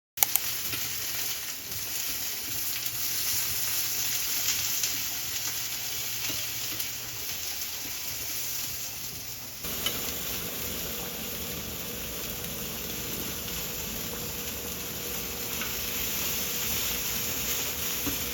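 Food sizzling and frying in a hot pan: a steady hiss with small crackles, shifting about ten seconds in.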